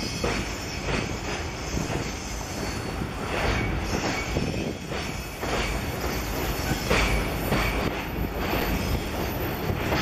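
Container freight train wagons rolling slowly over a steel girder bridge, their wheels clacking over rail joints in a loose, repeating rhythm, with a rumble underneath and a few brief wheel squeals.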